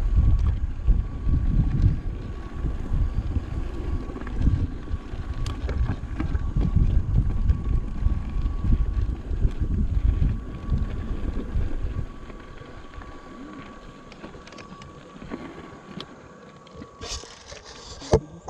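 Wind buffeting the microphone of a handlebar-mounted action camera over the rumble and rattle of an electric mountain bike rolling down a rough dirt singletrack. It is loud and gusty for about the first twelve seconds, then quieter as the bike slows, with a faint steady whine throughout and a brief hiss near the end.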